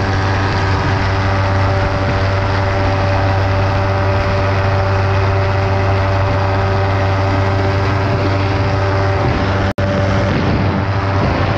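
Ultralight aircraft's engine and propeller running steadily in cruise flight, heard from the open cockpit with wind rushing past. The sound cuts out for an instant near the end.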